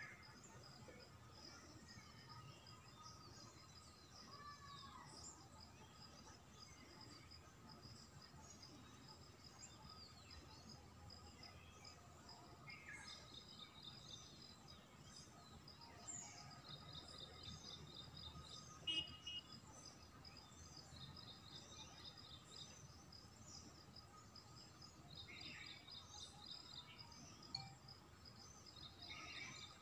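Faint outdoor ambience: small birds chirping and trilling on and off, over a thin steady insect drone.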